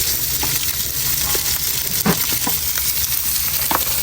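Coho salmon sizzling as it fries: a steady hiss with scattered pops and crackles, over a low rumble.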